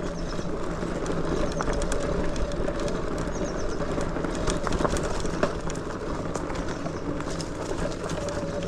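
Lectric XPeak 2.0 electric bike rolling along a dirt trail: steady tyre and riding noise with a steady hum. Faint bird chirps come through now and then.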